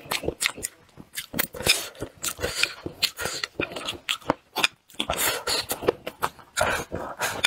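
A person chewing and smacking their lips while eating braised crucian carp: many short, irregular clicks and smacks.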